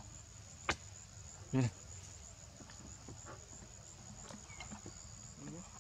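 A steady high-pitched insect drone. A sharp click comes just under a second in, and a short low grunt about a second and a half in.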